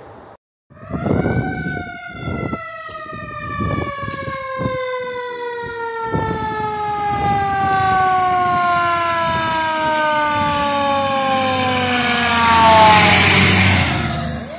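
Fire engine siren sounding one long wail whose pitch falls slowly and steadily over about thirteen seconds. Near the end the truck passes close by, and its engine and road noise swell to the loudest part.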